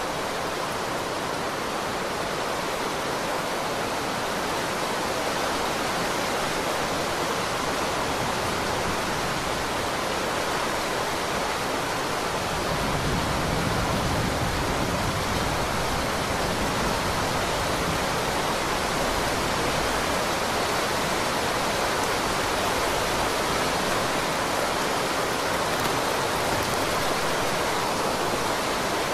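Heavy rain falling steadily, a dense even hiss. About halfway through, a deeper low rumble comes in underneath and stays, and the rain grows slightly louder.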